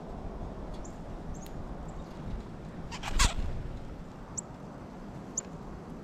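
Wind rumbling on the microphone, gusty, with several very short high chirps from small birds at the feeder. About three seconds in there is one brief, louder, harsh sound.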